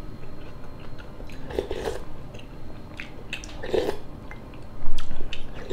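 Close-miked eating of borscht: chewing and slurping soup from a wooden spoon, with light clicks of the spoon against the bowl. The loudest slurp or mouthful comes about a second before the end.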